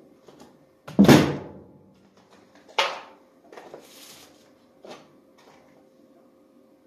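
Clunks of metal tools and engine parts being handled and set down on a wooden workbench: a loud knock about a second in, another near three seconds and a fainter one near five seconds, with some rustling between.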